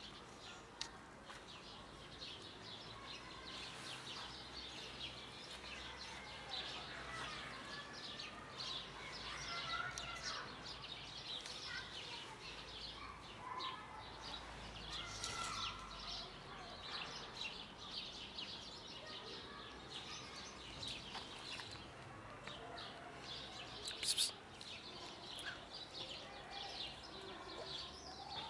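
Small birds chirping over and over, with a low background rumble.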